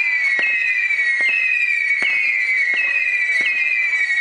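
Fireworks launching in rapid succession, each with a sharp pop and then a high whistle that slides slowly down in pitch. A new whistle starts about every 0.7 seconds, so they overlap into a continuous shrill chorus, about six in these few seconds.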